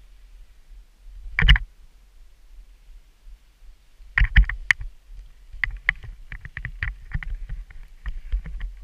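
Skiing heard from a body-worn camera: a low wind rumble on the microphone, with sharp clicks and knocks from the skis and gear. One loud knock comes about a second and a half in, and a fast, irregular run of them starts about four seconds in.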